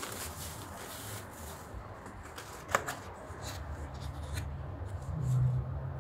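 Crinkling of a thin plastic bag being handled, with one sharp snap about halfway through as the foam takeaway container's lid comes open, then lighter rustling of the plastic soup bag. A low rumble runs underneath in the second half and swells near the end.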